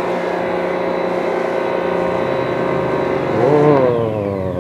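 Electric motor of a snow-foam washing machine running steadily with a hum while snow foam is sprayed on, the foam stage of a motorbike wash. Its pitch bends and it swells near the end.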